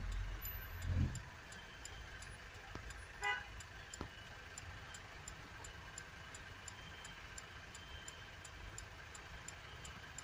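Faint steady street traffic noise, with a low thump about a second in and one short car-horn toot about three seconds in.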